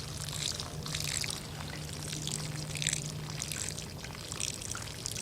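Water pouring and trickling out of a bullet hole in a water-filled barrel, splashing unevenly.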